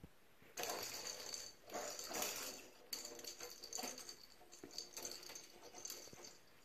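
Small plastic cat-toy balls rattling as kittens bat them around an empty bathtub and they roll and knock against the tub. It starts about half a second in and comes in irregular spurts.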